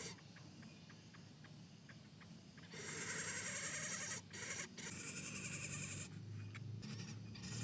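Lesser coucal giving its harsh, rapid sputtering 'mbeset-mbeset' call: a few faint clicks, then two fast-pulsed rasping bursts of about a second each, the first about three seconds in and the second just under five seconds in.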